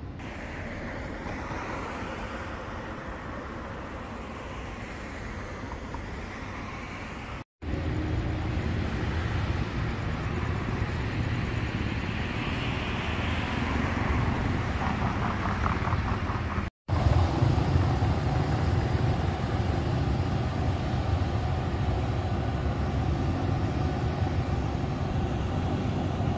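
City street traffic noise: cars passing, with a steady low rumble and road noise swelling and fading. It cuts to silence twice, very briefly.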